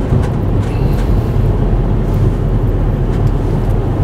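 A car being driven, heard from inside the cabin: a steady low rumble of engine and road noise, with a few faint ticks.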